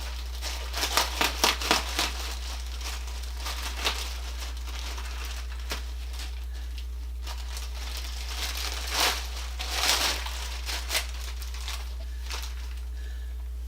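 Plastic packaging crinkling and rustling as it is handled and pulled off, in irregular crackles that come in two spells, one near the start and one about two-thirds of the way through. A steady low electrical hum runs underneath.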